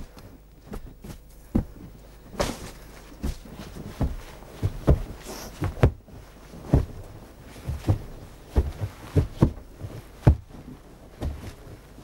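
Wooden hand rammers pounding snow, a string of irregular dull thumps about one or two a second: snow being tamped down and compacted into ice.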